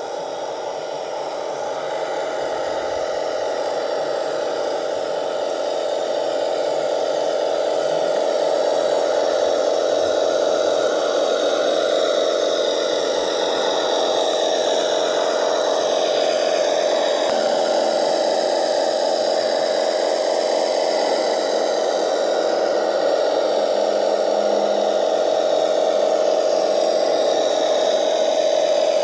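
Radio-controlled model Raupenschlepper Ost tracked truck driving: a steady mechanical whir from its drive, getting louder over the first several seconds as it comes closer, then holding level.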